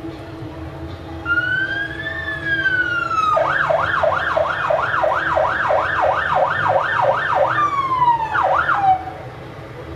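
Fire engine's electronic siren: a slow wail rising and falling, then a fast yelp of about three sweeps a second, dropping back to a falling wail and cutting off about nine seconds in.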